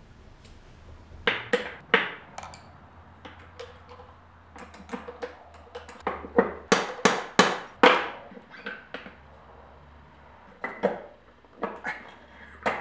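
Steel gear shafts and parts of a Ford Escort ZX2 manual transmission knocking and clinking against each other and the case as they are worked loose and lifted out by hand. The knocks come in irregular clusters, loudest and densest around the middle.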